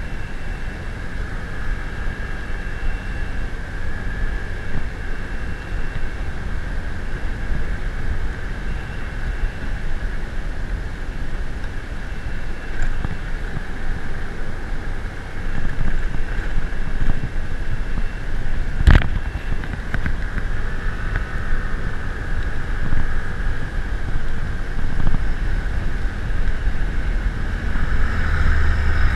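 Vehicle running while on the move, with steady wind rumble on the microphone; one sharp click about two-thirds of the way through.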